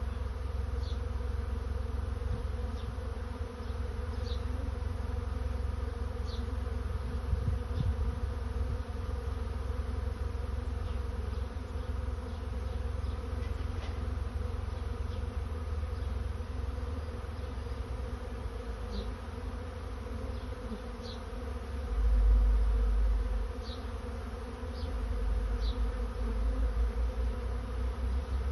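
A swarm of honey bees buzzing in the air, a steady many-voiced hum. A brief low rumble on the microphone a little past two-thirds of the way through is the loudest moment.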